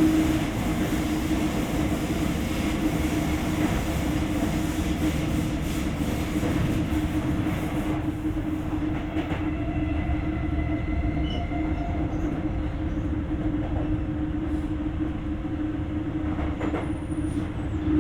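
Sotetsu 8000 series electric train with Hitachi GTO-VVVF traction equipment, heard from inside the car: steady running noise of wheels on rail with a steady hum underneath. About halfway through the higher part of the running noise thins out as the train eases off.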